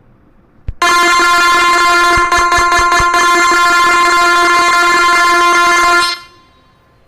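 A phone keyboard app's synthesizer voice holding one steady horn-like note for about five seconds, imitating an Indian locomotive horn. It is preceded by a tap on the screen and stops sharply.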